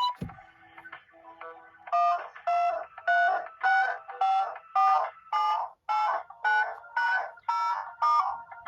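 Smartphone alarm tone: a rapid run of short electronic beeps, about two a second, each a quick two-note chirp, starting about two seconds in after a brief soft thump.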